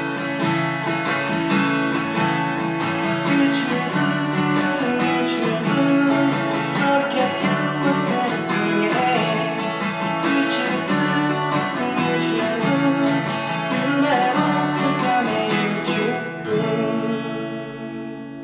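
Takamine acoustic guitar strummed in a pop song, with a man singing along. The last chord rings out and fades over the final two seconds or so.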